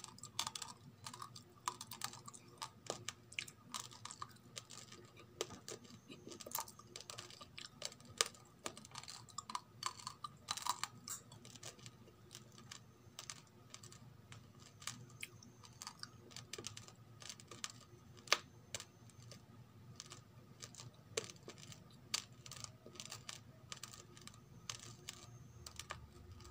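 Raw rice grains crunching between the teeth while chewing: a stream of irregular sharp cracks, thicker in the first half and sparser later.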